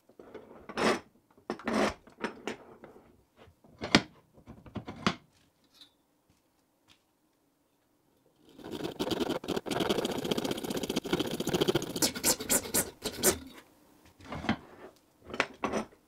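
Hand-tool work on a hard material: a few short scrapes and knocks, then about five seconds of continuous rasping scraping, then a few more short scrapes near the end.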